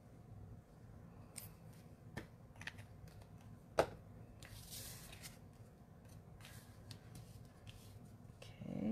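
Small taps and rustles of cardstock handling while liquid glue is applied to a paper mat, with a sharp click a little before the middle as the glue bottle is set down on the desk, then a short rustle of card being picked up and slid into place.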